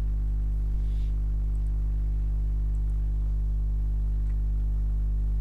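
Steady low electrical mains hum with a buzzy edge, unchanging.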